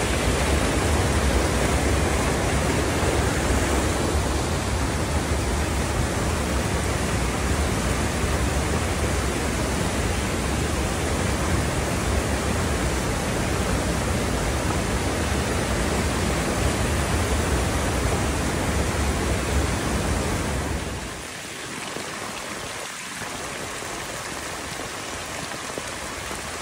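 Steady rush of water. A deep rumble underneath drops away about two thirds of the way through, leaving a quieter, lighter hiss.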